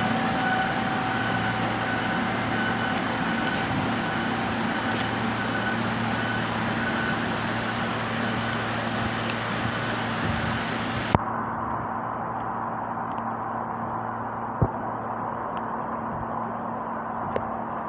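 Steady hum of an idling vehicle engine under an even, constant hiss, with a few faint clicks.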